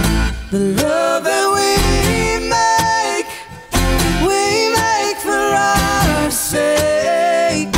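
Live string band playing: mandolin, upright bass, acoustic guitar, resonator guitar and fiddle. The band comes in together sharply at the start, drops out briefly a little past three seconds in, and hits back in together just before four seconds.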